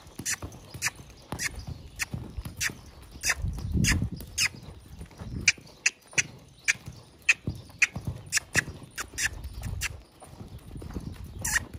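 A horse cantering on a lunge line in a sand arena: a steady run of sharp clicks, several a second, over soft low thuds of its hooves in the sand.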